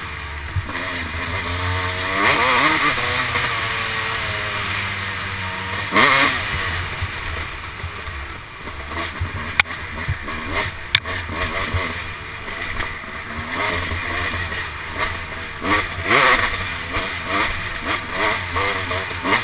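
Kawasaki dirt bike engine under hard riding, the revs climbing in several surges, strongly about two, six and sixteen seconds in, and easing off between them. Two sharp clacks near the middle.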